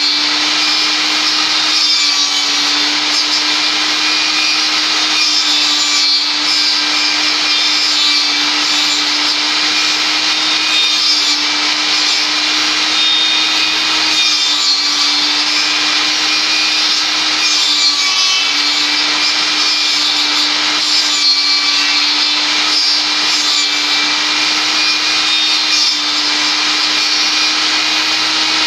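Table saw running with a steady hum while its blade cuts into the end of a log turned on a pivot jig, shaving it into a round tenon; a continuous cutting noise sits over the motor hum.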